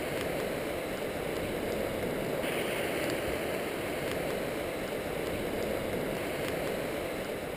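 Steady rush of a fast-flowing river running over rapids.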